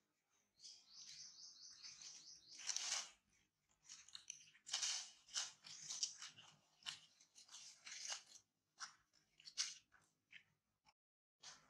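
Dry leaf litter crunching and crackling in sharp, irregular bursts as macaques scuffle and move over it, opening with a fast run of short high pulses.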